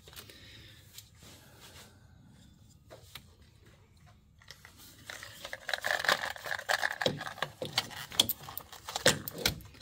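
Small metallic clinks and rattles of a wrench and a loosened battery cable clamp being handled. A quick, uneven run of clicks starts about halfway through.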